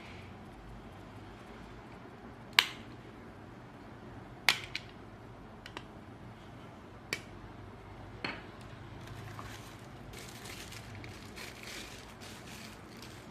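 Sharp plastic clicks of a sports sunglasses lens snapping against its frame, about five spread over several seconds, two of them close together, followed by soft handling rustle.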